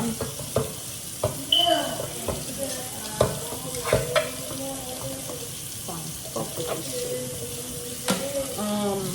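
Kitchen sounds at the stove: a steady sizzling hiss with a few sharp clanks of a pot and utensils, and voices talking in the background.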